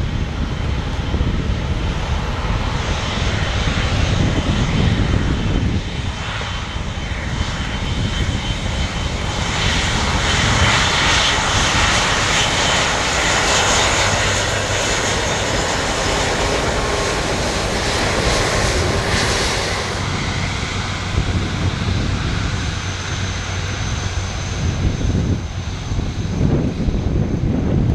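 Airbus A330-343's two Rolls-Royce Trent 772B-60 turbofans at high power on the takeoff run, a continuous jet roar with a deep rumble. A higher whine swells in about ten seconds in and fades after about twenty seconds as the aircraft passes and moves away.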